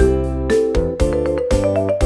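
Background music: a keyboard tune with a steady beat.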